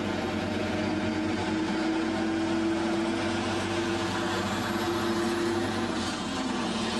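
Diesel engine of a heavy truck hauling an oversize load on a low-loader trailer, running steadily as it drives past.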